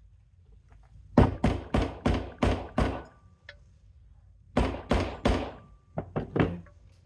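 A kickstarter shaft seal being tapped into a motorcycle gearbox cover: a run of six sharp knocks, a pause of about two seconds, three more, then a few lighter taps as it seats.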